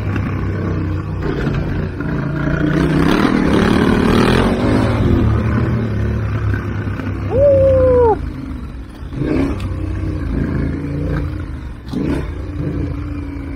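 Two adventure motorcycles running side by side at trail speed on a dirt track: the KTM 1290 Super Adventure R's V-twin and the Yamaha Ténéré 700's parallel twin, with a steady engine drone that swells for a couple of seconds early on. About seven seconds in there is a brief wavering high-pitched tone, and a few sharp knocks come later.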